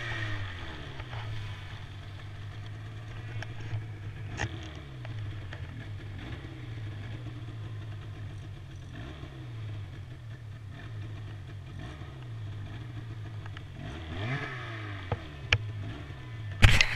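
Snowmobile engine running at low revs while the sled travels slowly over snow, its pitch easing down from higher revs at the start, then dipping and rising gently. A brief rev comes about fourteen seconds in, and a few sharp clicks and knocks are heard, the loudest near the very end.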